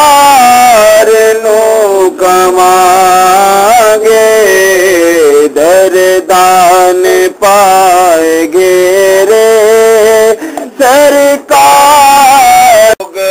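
A solo voice singing a slow song in Punjabi, holding long notes with wavering, sliding ornaments and short pauses between phrases.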